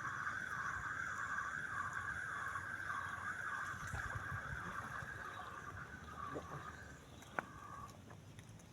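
Insect buzzing steadily with a pulsing beat about two and a half times a second, over a low outdoor rumble. The buzz fades out near the end, and a single sharp click sounds just before it stops.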